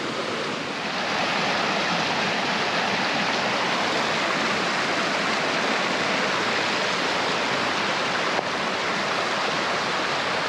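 Small mountain creek running full with spring runoff, rushing and splashing over rocks in little cascades: a steady rush that swells louder about a second in.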